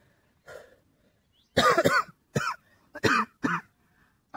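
A man coughing and clearing his throat in a string of about five short bursts, the loudest about a second and a half in, from a head cold.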